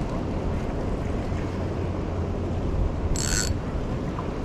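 Wind buffeting the microphone over surf, with a brief hissing zip about three seconds in as fishing line is let off a spinning reel.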